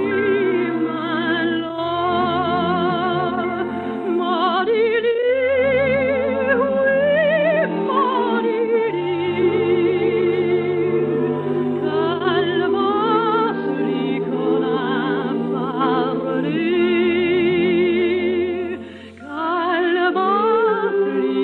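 Soprano singing a slow lullaby with strong vibrato over sustained orchestral accompaniment, with a brief pause for breath near the end. The sound is narrow and thin, as on an old radio transcription.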